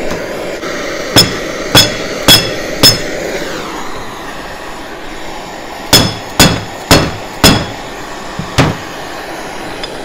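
Nine sharp metal knocks, each with a brief ring: four in under two seconds, then after a pause five more. They sound over the steady hiss of a gas torch flame. The knocks are working a stuck bearing out of the heated propeller drive pulley, a bearing the owner suspects is held by corrosion.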